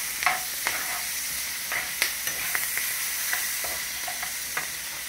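Halved Brussels sprouts sizzling in hot oil in a skillet, with a steady hiss and irregular sharp clicks and taps as they are stirred with a metal spoon.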